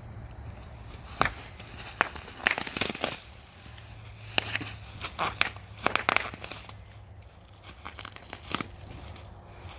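Bubble wrap being popped by a dog biting and pawing at it: a dozen or so sharp pops at irregular intervals, bunched in the first half, amid crinkling plastic.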